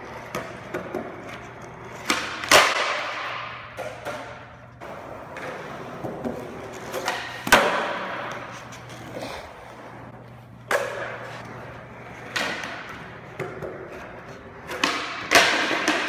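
Skateboards rolling on a smooth concrete floor, with about five loud clacks of boards popping and slapping down during flatground trick attempts, each ringing on in a large echoing room, and smaller clicks in between.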